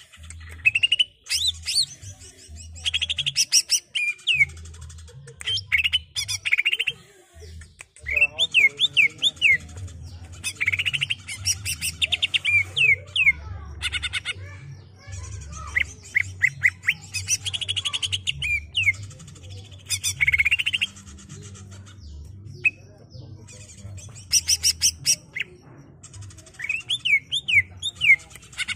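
Caged male cucak ijo (green leafbird) singing its rolling song: quick bursts of swooping whistled notes and fast high trills, phrase after phrase with brief pauses.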